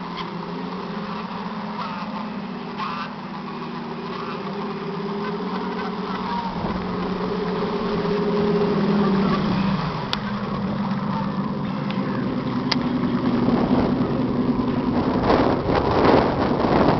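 Simulated marine diesel engine sound from the onboard speaker of a radio-controlled 1/12-scale Mersey lifeboat model, a steady throb that rises in pitch as the throttle opens and drops back about ten seconds in. A burst of rushing noise comes near the end.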